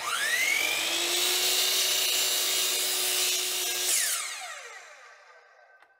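Compound miter saw motor starting with a quickly rising whine and running steadily for about four seconds while its blade crosscuts a small block of solid maple. About four seconds in the saw is switched off and winds down with a falling whine.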